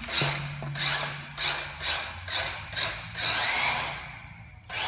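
Small electric motor of a remote-control car whirring in short bursts, about two a second, then one longer run about three seconds in that fades away.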